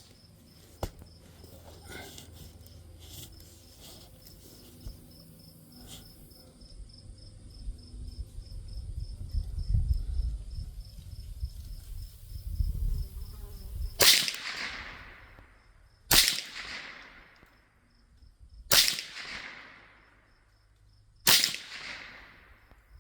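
Mendoza Puma .22 LR rifle fired four times, about two to two and a half seconds apart, each sharp crack trailing off in a short echo. Before the first shot there are only a few faint clicks of handling and a low rumble.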